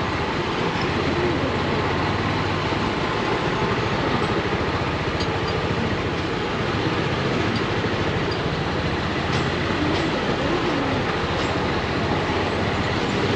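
Motorcycle on the move: steady wind rush over the microphone, with the engine running faintly underneath.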